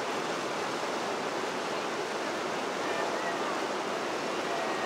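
Fast river current rushing and splashing over shoreline rocks in a steady, even wash of water noise.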